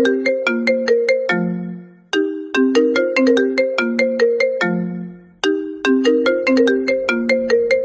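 A phone ringtone tune of quick, short ringing notes, the same little phrase starting over about every three seconds.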